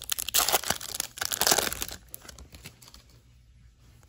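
A Bowman Chrome baseball card pack's foil wrapper being torn open and crinkled, a burst of scratchy crackling that dies away after about two and a half seconds.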